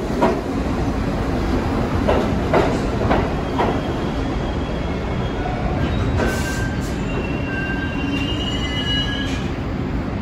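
New York City subway train running on the track with a steady rumble. A few clacks, as the wheels pass over rail joints, come in the first four seconds. A high wheel squeal sounds from about six to nine seconds in.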